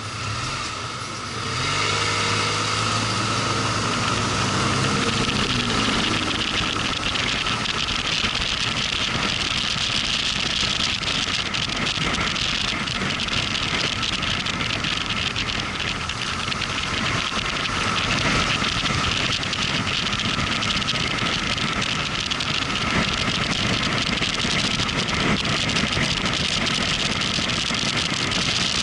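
Motorcycle engine pulling away, its pitch rising over the first few seconds. It then settles into a steady ride at speed, with wind and road noise rushing over the microphone.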